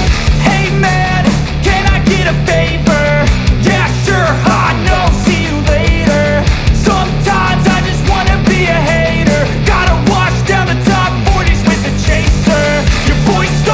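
Background rock music with a steady beat, driving bass and a lead melody.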